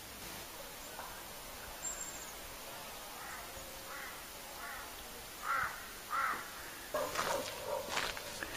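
Bird calls: a run of short, harsh calls repeating about every two-thirds of a second, growing louder, with more calls crowding in near the end.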